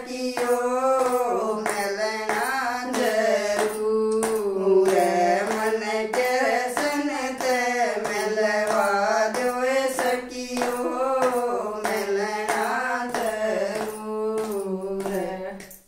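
Two women singing a Haryanvi devotional bhajan to Krishna, keeping time with hand claps about twice a second.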